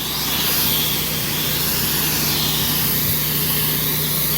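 Pressure washer running steadily, its wand hissing as it downstreams a soap (house wash) mix onto a wooden deck at low pressure.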